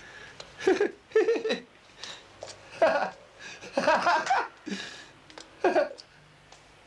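A young man laughing in about six loud, broken bursts spread over several seconds.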